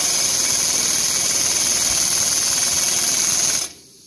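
Snap-on pneumatic impact gun hammering steadily on the threaded rod of a press, straining against a mechanically seized, rusted piston and cylinder on a two-stroke engine. It stops abruptly near the end, leaving a faint hiss.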